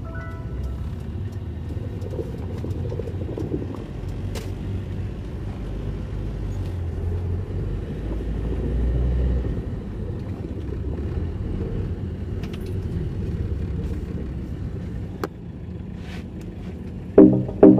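Car driving, heard from inside the cabin: a steady low rumble of engine and road. Music with a strong, even beat comes in near the end.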